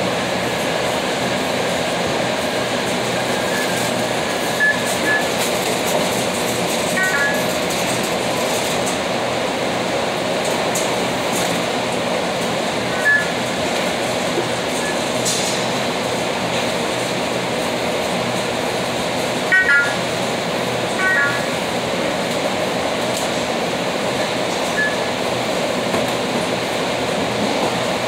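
Steady, even machine noise, with short electronic beeps several times.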